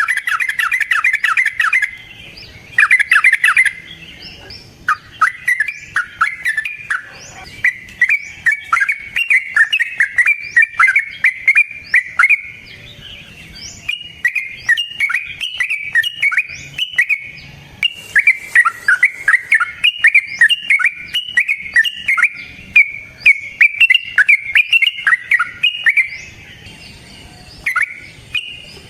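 Yellow-vented bulbul singing a long, rapid string of chattering notes, many a second, with only short breaks.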